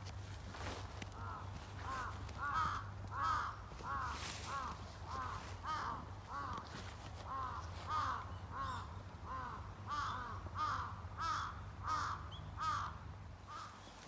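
Crows cawing over and over, about two harsh caws a second, with footsteps brushing through tall grass.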